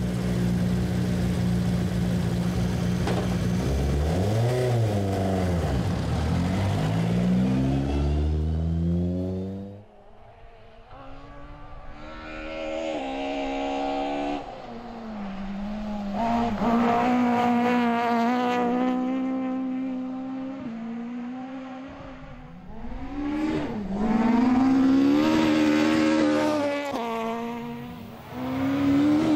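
Toyota Starlet rally car's 4A-GE 16-valve four-cylinder engine at high revs, its pitch falling and rising with the throttle and stepping through sequential gear changes. The sound cuts off abruptly about ten seconds in to a quieter stretch where the engine climbs through the gears again.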